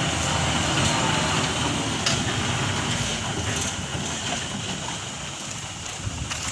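Tata Hitachi ZAXIS 120H excavator's turbocharged diesel engine running, with a few sharp knocks. The engine hum eases off after the middle.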